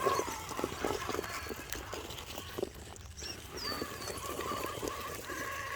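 Axial Capra RC crawler's Hobbywing AXE brushless motor whining steadily as it crawls, with scattered clicks and knocks of tyres and chassis on rock; the whine drops out midway and comes back about two-thirds of the way in. Birds give short falling chirps in the background.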